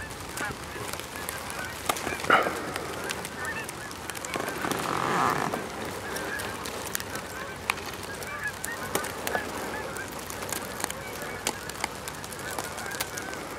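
A flock of Canada geese honking overhead, many calls overlapping, with a louder honk about two seconds in.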